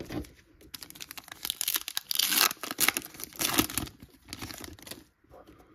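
Foil wrapper of a 2023 Topps Chrome baseball card pack being torn open and crinkled by hand: a run of crackling tears, loudest in the middle, fading out near the end.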